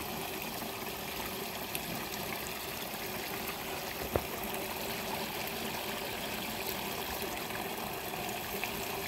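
Steady trickle of water in a small, shallow rice-field ditch, with one sharp click about four seconds in.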